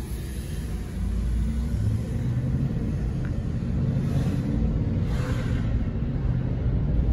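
Engine and tyre rumble heard inside a moving car, growing louder about a second in as the car picks up speed, with a few brief whooshes in the second half.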